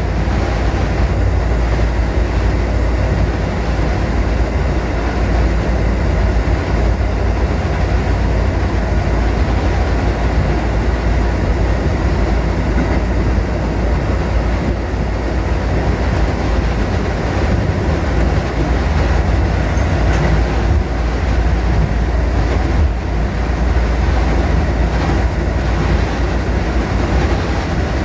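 Kotoden Kotohira Line electric train running along the track, a steady rumble of wheels and running gear heard from inside the front of the car.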